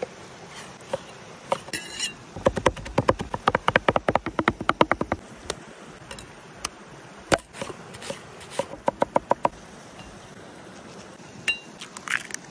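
Steel cleaver chopping raw meat on a wooden board, in fast runs of knocks at about eight a second, a few single chops, and a shorter run later. Near the end comes a sharp click and crackle as an egg is cracked on the cleaver's edge. A stream runs steadily in the background.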